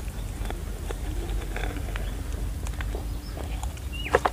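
Spoon and knife tapping and scraping against the inside of a small steel tumbler as a steamed egg kulfi is pried out, light scattered clicks over a low background rumble. A sharper click and a short high falling chirp come near the end.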